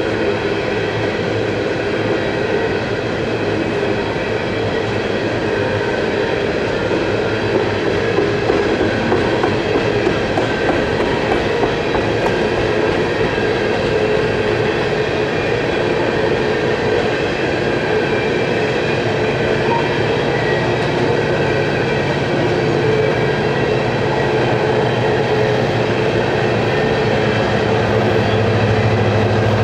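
Empty coal cars of a BNSF coal train rolling steadily past, steel wheels running on the rails in a continuous rumble and rattle. A low hum grows louder near the end.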